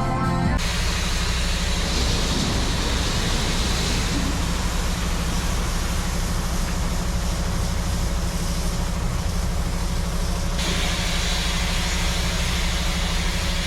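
A heavy diesel engine running steadily, with a broad hiss over its low hum. The hiss drops away about eleven seconds in. The last of the background music cuts off about half a second in.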